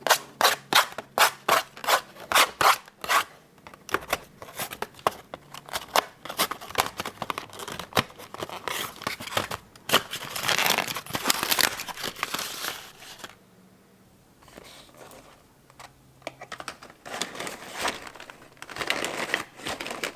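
Paper or plastic being crinkled and torn, with a quick run of sharp clicks in the first few seconds and a quieter stretch past the middle.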